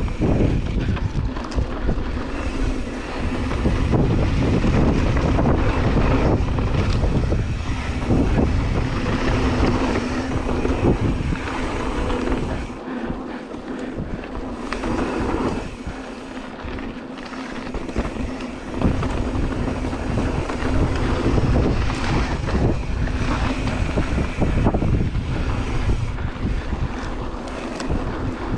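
Wind buffeting an action camera's microphone as a mountain bike rides dirt singletrack, with knocks and rattles from the bike over bumps. The noise eases for a few seconds about halfway through, then picks up again.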